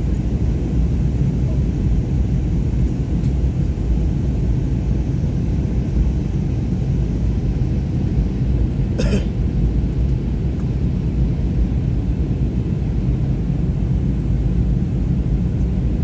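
Steady rumble of an airliner's cabin noise, engines and airflow, as the plane descends to land. About halfway through comes one brief voice-like sound.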